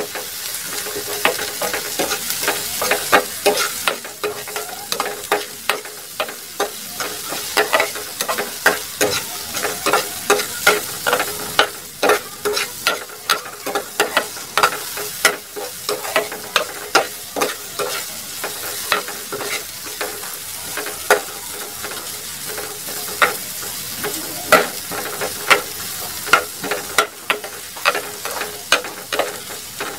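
Chopped garlic and red onion sizzling in hot oil in a frying pan, stirred with a utensil that scrapes and clicks against the pan many times.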